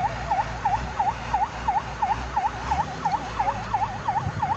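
Emergency vehicle siren sounding a fast warble, its pitch dipping and rising again about three times a second, over a low rumble.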